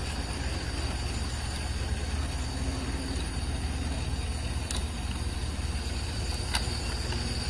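Steady rumble and hum of electric model trains running on a layout, with a couple of sharp clicks as a model steam locomotive is handled and set back onto the rails.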